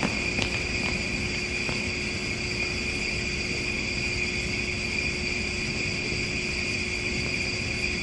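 Steady high-pitched whine over a low hum: the room tone of a large gymnasium, with a couple of faint clicks in the first two seconds.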